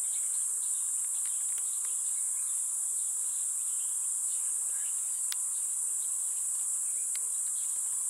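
Steady, high-pitched drone of insects calling without a break, with a couple of faint clicks.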